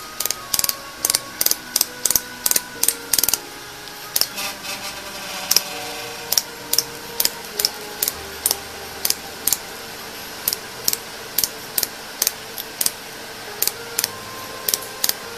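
Pulsed laser welding machine firing on a metal strip, each laser pulse a sharp snapping click, about two a second, with a short lull about four seconds in.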